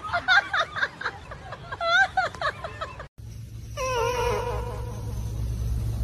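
A cat's purr picked up by a microphone held to its face and played through a portable speaker: a steady low rumble starting about three seconds in, with a steady higher tone over it from about a second later. Before it, a string of short squeaky cries.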